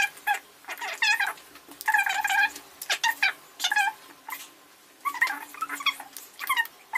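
A person's high-pitched whimpering squeals, given in a string of short wavering cries with brief pauses between them: an overwhelmed, emotional reaction.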